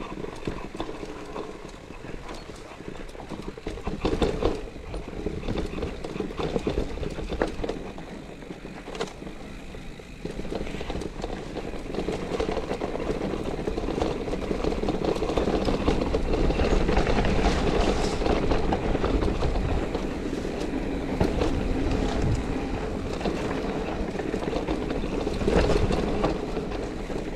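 Mountain bike descending a rough, rocky trail: the tyres rumble and crunch over stones while the bike rattles and clatters with many sharp knocks. The noise grows louder and steadier from about halfway through.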